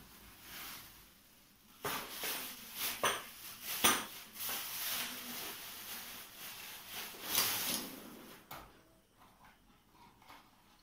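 Rustling and handling noises, with a few sharp knocks between about two and four seconds in, as objects are moved about close by; quieter from about eight and a half seconds.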